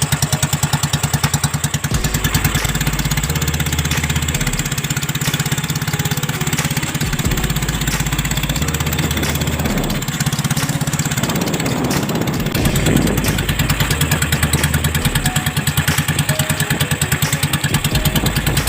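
Small boat engine running steadily with a rapid, even firing beat.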